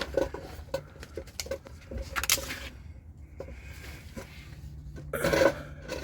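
Scattered small metal clicks and knocks as a greased drive axle is worked into the transmission by hand, with a brief rattle about two seconds in and a louder scraping burst about five seconds in.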